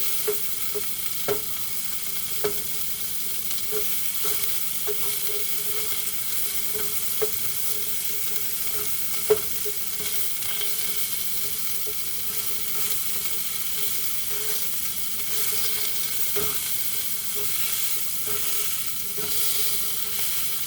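Chicken frying in oil in a skillet, with a steady sizzle. Now and then there is a sharp tap; the loudest comes about nine seconds in.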